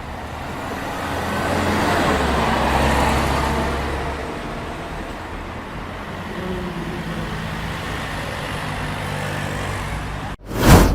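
Steady rumbling noise, like passing road traffic, that swells for a couple of seconds and then eases. Near the end it cuts out briefly and a sudden loud whoosh follows.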